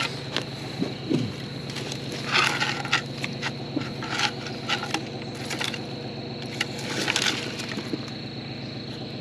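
Irregular crunches and scrapes as a green stick is pushed and dragged through ash and charred stump wood, over the steady idle of a tractor engine.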